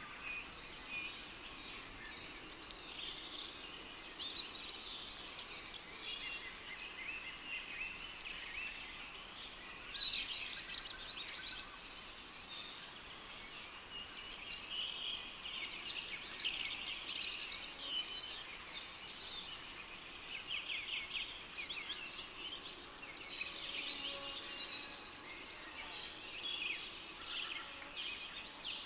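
Rainforest ambience: a cricket chirping in a steady, even string of high chirps, with birds calling over one another underneath.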